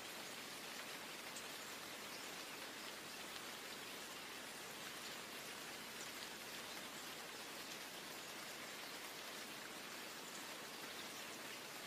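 Steady rain: an even hiss of falling rain with faint, scattered drop ticks.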